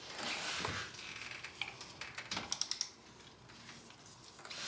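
A ratchet clicking and rattling lightly in a few short runs near the middle, working on an oil drain plug that is done up too tight to break loose.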